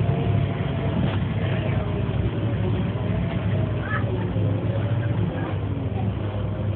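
Volvo B7LA bus (Wright StreetCar) under way, heard from inside the passenger saloon: the steady drone of its 7-litre six-cylinder diesel and drivetrain, with a higher whine above the low hum that wavers slightly in pitch.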